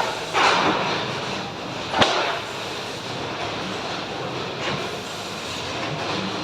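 Factory machinery noise: a steady mechanical din with short surges of hiss and one sharp knock about two seconds in.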